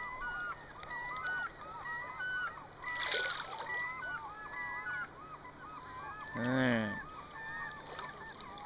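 A flock of birds calling without a break, many short overlapping calls several a second, with a splash about three seconds in.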